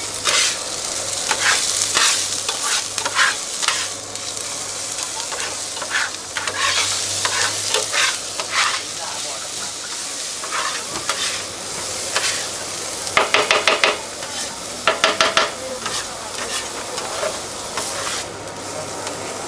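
Chopped onion, garlic and green chillies sizzling in oil on a hot flat steel griddle (tawa), with a metal spatula scraping and stirring them across the surface in short strokes. About two-thirds of the way through come two quick runs of rapid taps of the spatula on the griddle.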